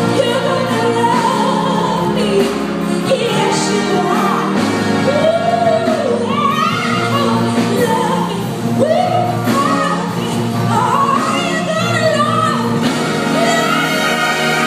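A woman singing a soul ballad, her voice sliding and wavering on held notes, over a school concert band's sustained wind and brass chords.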